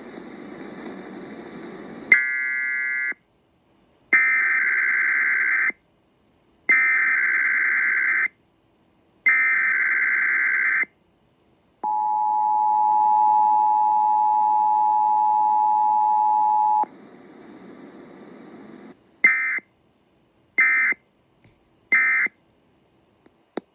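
Emergency Alert System tones broadcast over the radio: four data bursts of the SAME header, then a steady two-tone attention signal for about five seconds, then three short end-of-message bursts. A faint hiss from the station runs between them.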